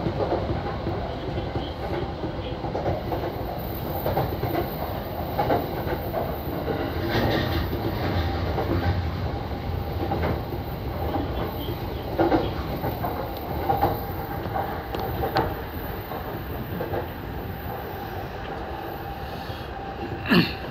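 Yamanote Line electric train running along the track, heard from inside the driving cab: a steady rumble of wheels on rails with irregular clacks as it rolls over rail joints and points, and one sharper, louder clack near the end.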